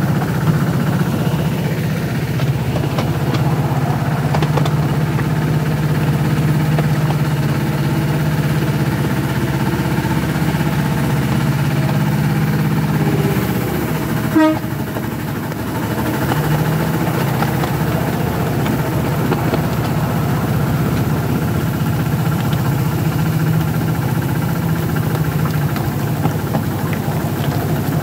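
Diesel-hydraulic engine of a miniature railway locomotive running steadily as it hauls the train, heard from the open carriages behind it. About halfway there is a sharp clank and the engine note drops for a second or two before picking up again.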